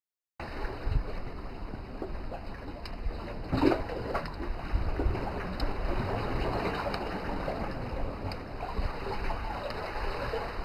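Outdoor ambience of a rocky sea shore: wind rumbling on the microphone over small waves lapping the rocks, with a few faint clicks and one brief louder sound about three and a half seconds in. The sound cuts in suddenly about half a second in.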